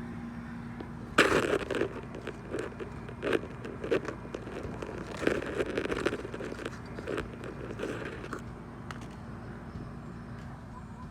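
Squash plants being handled and cut: leaves and stems crackling and crunching in irregular bursts, starting about a second in.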